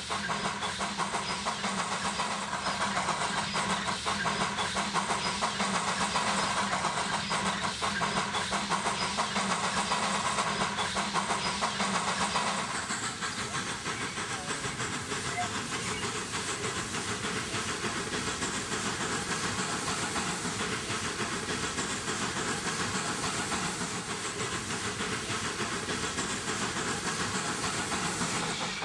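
Narrow-gauge steam locomotive working, a steady run of exhaust beats with hissing steam. The sound changes abruptly to a duller mix about 13 seconds in, then carries on in the same even rhythm.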